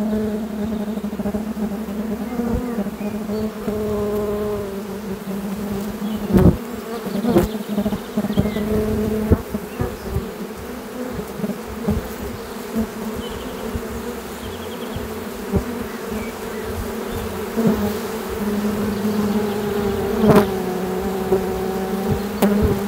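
Close-up of a honeybee swarm buzzing as it streams into a hive at the entrance: a steady low hum with the wavering pitches of single bees flying past. A few short, sharp taps stand out.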